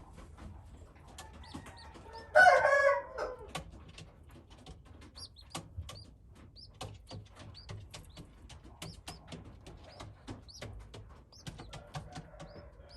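Chickens: a rooster crows once, loudly, for about a second, starting a little over two seconds in. Short high chick peeps and light clicks are scattered around it.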